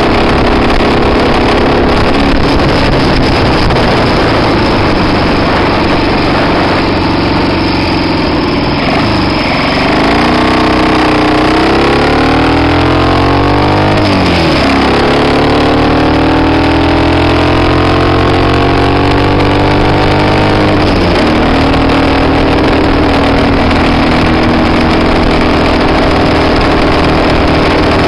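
1967 Triumph T100's 500 cc parallel-twin engine running. It holds a steady note, then about a third of the way in its pitch dips and climbs, drops suddenly near the middle, and climbs again. Later it falls back to a steady note. The bike has a misfire in third and fourth gear that the owner wants diagnosed.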